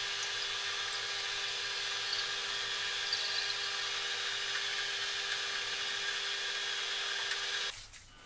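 A 54-year-old Brackenbury & Austin metal lathe running at a steady speed, whirring with a steady whine while turning a shoulder on the end of a stainless steel leadscrew. The sound cuts off suddenly near the end.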